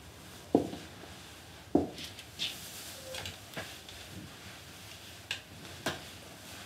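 Heavy footsteps of boots on a hard floor, two firm steps in the first two seconds, followed by the softer knocks, creak and rustles of someone sitting down on a wooden chair and shifting on it.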